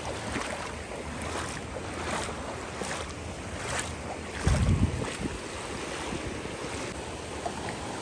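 Sea waves washing and splashing in the shallows, with wind on the microphone and one strong low gust about halfway through.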